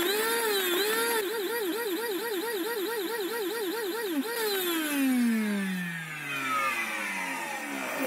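Samsung VC-6714HNS vacuum cleaner motor switched on and off over and over to test its repaired power button: the motor's whine rises and dips, about three times a second in the middle, as the power cuts in and out. About halfway through it is switched off and spins down with a long falling whine.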